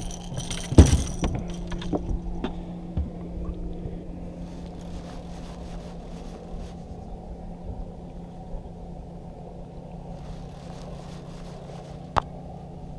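Knocks on a fishing boat's deck, one loud about a second in, a few lighter ones after, and a sharp click near the end, over a steady low hum.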